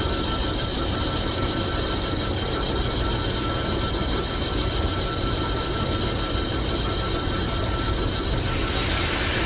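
Metalworking lathe running steadily: a constant low rumble with a steady whine on top. A hiss joins about eight and a half seconds in.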